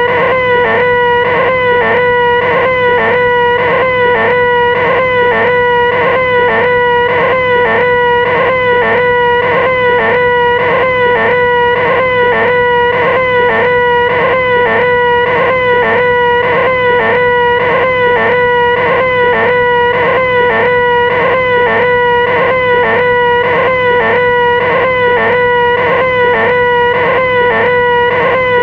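A loud, high-pitched, nasal 'ehhh' screech from a human voice, held at one steady pitch without a break.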